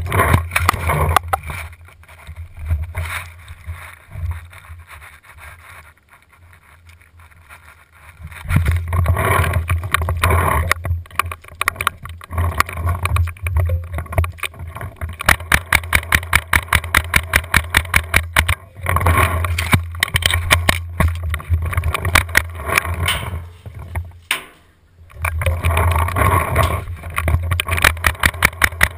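Tippmann A5 paintball marker firing strings of rapid, evenly spaced shots, several a second, in a few bursts with pauses between. Heavy wind and handling rumble on the barrel-mounted camera runs under it.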